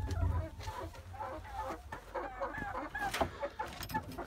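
Chickens clucking softly in a coop, a run of short, scattered calls with a few light knocks among them.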